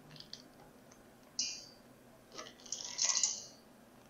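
Chocolate chips being poured from a plastic bag and measuring cup into a stainless steel mixing bowl. A short crisp rattle comes about a second and a half in, then a longer clattering patter of chips around three seconds in.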